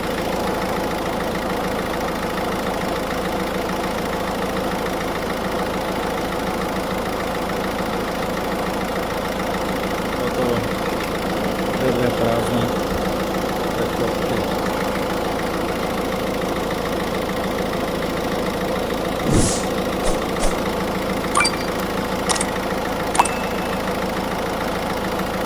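Car engine idling steadily. Near the end, a handful of sharp clicks and knocks.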